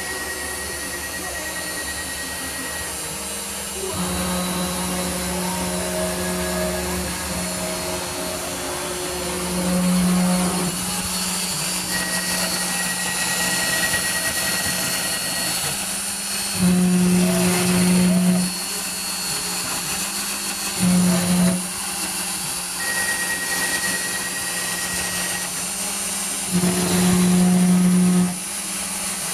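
CNC router running as it mills a pattern into a wooden board: a steady machine hum with a thin whine, which swells to louder stretches several times, briefly about a third of the way in and the middle, longer near the end.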